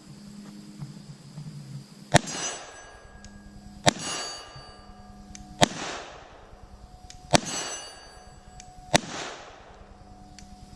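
Five shots from a 9mm SIG SP2022 pistol, evenly spaced about a second and a half apart. Each shot is followed by the ringing of the steel target being hit.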